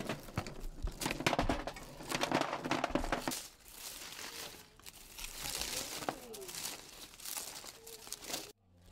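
Dry leaves crinkling and rustling as they are handled and laid over a heap of stones, with stones clacking against each other in the first few seconds; the sound cuts off suddenly near the end.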